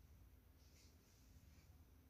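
Near silence: room tone with a few faint soft rustles.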